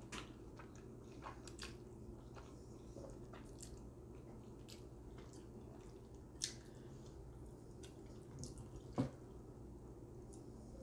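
Wet, close-up mouth sounds of someone eating spaghetti and meatballs: faint smacks and squishy chewing, with scattered small clicks. Two sharper clicks stand out, about six and a half seconds in and nine seconds in.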